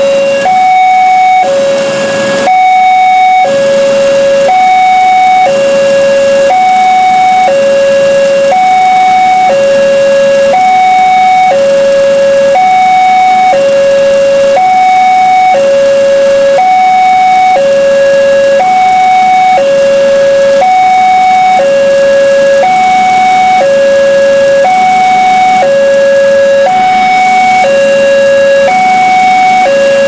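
Two-tone electronic warning siren alternating steadily between a high and a low tone, each held about a second. A short rush of noise joins it about two seconds in.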